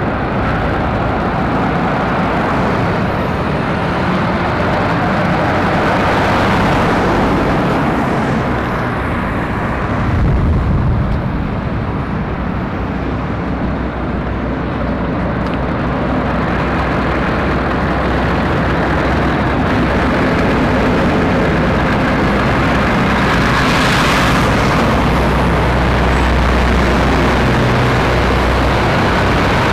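Heavy goods vehicles, articulated lorries, driving round a roundabout: diesel engines running with tyre noise, the low engine rumble growing louder in the last few seconds as the trucks come close. A short hiss cuts through late on.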